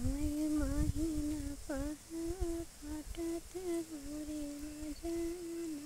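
A woman humming a village folk-song tune without words, in held notes and short melodic phrases with small pitch turns.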